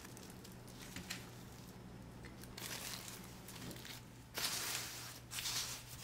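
Plastic wrapping crinkling and rustling as potted plants are handled, in a short burst and then a louder, longer one near the end, over a faint steady hum.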